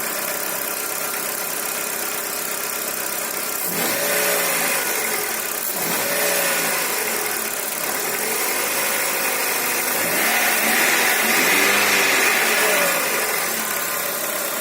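Chevrolet Corsa engine idling, then revved by the throttle three times, briefly about four and six seconds in and longer about ten seconds in, pitch rising and falling back each time. The owner is trying to find the source of an unexplained engine noise.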